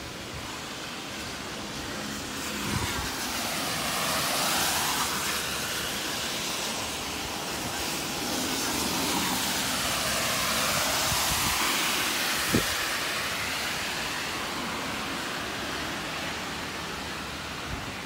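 A train crossing a river bridge, its rumble swelling about two seconds in and fading toward the end, over the steady hiss of heavy typhoon rain. A single sharp knock about twelve seconds in.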